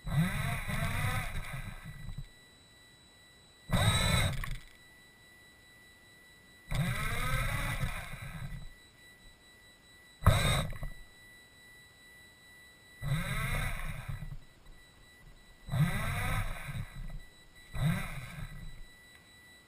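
Small rover's electric drive motors and gears whining in seven short runs of one to two seconds, with the pitch rising and falling in each run. The rover is driving in stop-and-go spurts.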